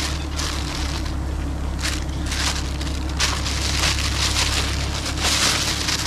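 Clear plastic bag rustling and crinkling as it is handled with honeycomb inside, over a steady low hum.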